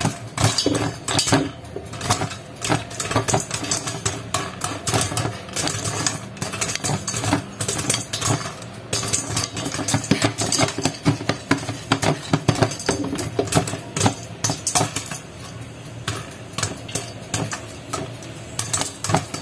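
Popcorn popping in a covered metal pot: a dense, irregular run of sharp pops and clinks as kernels burst and strike the pot and lid, late in the popping with the pot nearly full.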